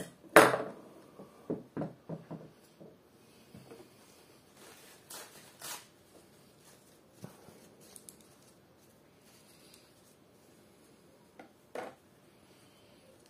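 Pliers clicking and knocking against the small metal thread-catcher assembly of a Happy embroidery machine while the bent part is worked straight. A sharp click comes just after the start, then a quick run of lighter knocks, faint scraping around five seconds in, and a double click near the end.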